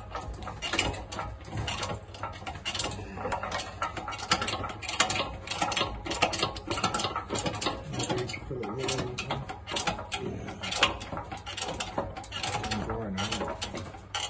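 Hydraulic workshop press forcing a seized piston down the cylinder bore of a Rootes 1600 engine block, with rapid, irregular mechanical clicking and rattling over a steady low hum. The piston is stuck fast in a block left standing for a long time.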